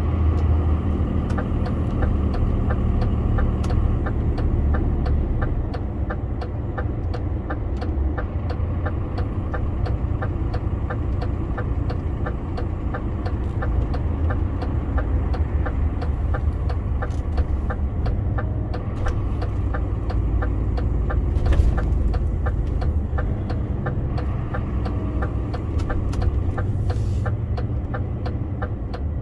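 DAF CF 480 truck's diesel engine running steadily, heard from inside the cab, with a regular light ticking over the low engine rumble.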